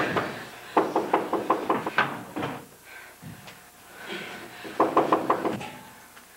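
Rapid knocking on a wooden door: a fast run of about eight blows, then after a pause of a few seconds another run of about six.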